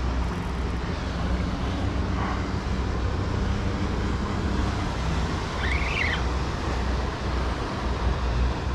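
Steady low rumble of road traffic crossing the nearby bridge, with a faint hum running through it. A short, faint, high sound rises and falls about six seconds in.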